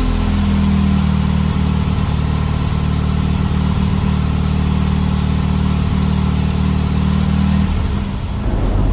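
Classic Fiat 500's air-cooled two-cylinder engine running at a steady speed, then easing off briefly near the end.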